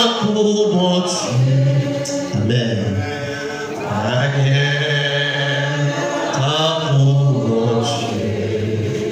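A man singing a short church hymn (cantique) into a microphone, in a low voice with long held notes, other voices joining.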